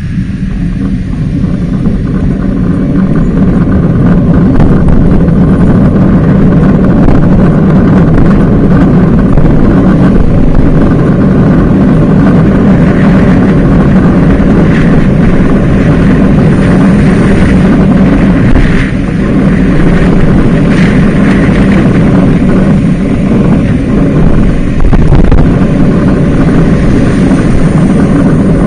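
Steady wind rumble on a bicycle-mounted camera's microphone while riding, mixed with road and street-traffic noise. It builds over the first few seconds as the bike picks up speed, then holds.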